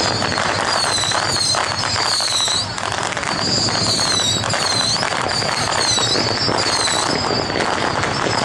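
Strings of firecrackers crackling continuously and densely, with a high swooping whistle-like tone repeating about once a second over the crackle.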